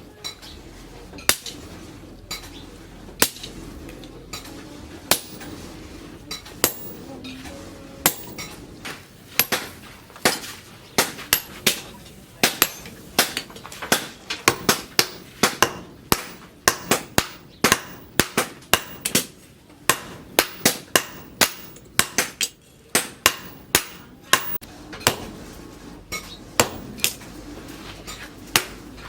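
Hammer blows on steel on an anvil while forging a leaf-spring blank into a small axe head. At first single strikes come about two seconds apart, then quicker, uneven runs of sharp strikes from about ten seconds in, thinning out again near the end.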